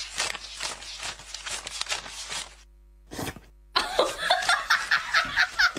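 Paper banknotes flicked through one by one as they are counted, a quick run of papery ticks that breaks off about halfway. It is followed by a faster run of ticks mixed with giggling.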